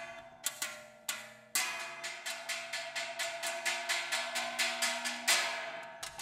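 Traditional Filipino percussion music of struck, ringing metal instruments. A few sparse strokes at first, then about a second and a half in a steady beat of about four strokes a second, with one louder hit near the end.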